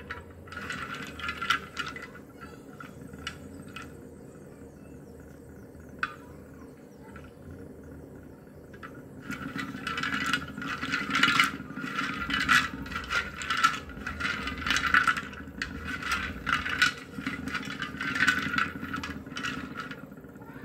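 Wet slate pencils clicking and rattling against each other and the pan as a hand stirs them in water. There are a few clicks early, then steady clattering from about nine seconds in, over a low steady hum.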